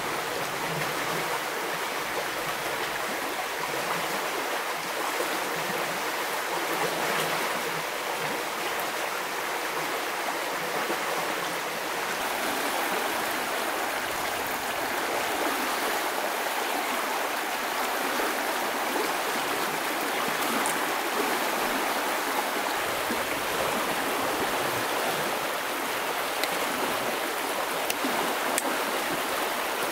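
Shallow stream running over stones and small rapids: a steady rush of water.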